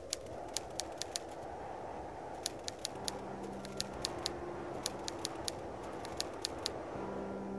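Typewriter key clicks, single strikes coming irregularly in short clusters, over a low steady noise. Soft sustained music notes come in about three seconds in.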